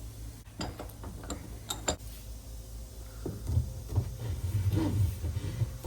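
Hand work on a fuel-line fitting: several sharp metallic clicks in the first two seconds, then duller knocks over low rumbling handling noise in the second half.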